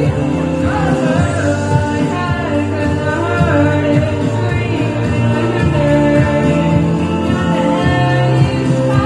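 A woman singing a pop song live into a handheld microphone over steady instrumental accompaniment, her voice sliding between long held notes.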